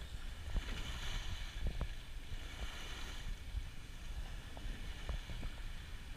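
Small waves washing and lapping against a boat's hull in the shallows, with wind rumbling on the microphone. The wash swells twice, and a few short sharp knocks stand out.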